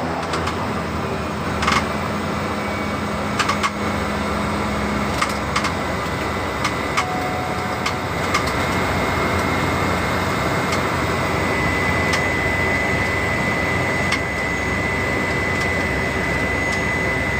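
Steady engine and propeller noise inside the cabin of a small propeller aircraft, with a thin high whine that grows clearer past the middle and a scatter of light clicks and knocks.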